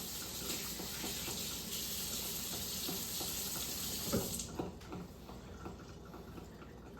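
Kitchen tap running as hands are rinsed under it, shut off about four and a half seconds in, followed by a few light knocks.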